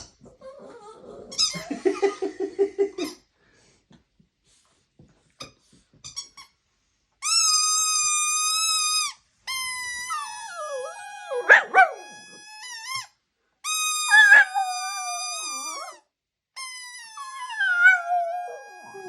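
A squeaky dog toy giving four long, drawn-out squeals, each about two seconds, while a Shih Tzu howls along in wavering, gliding notes. A short run of rapid low pulses comes a couple of seconds in.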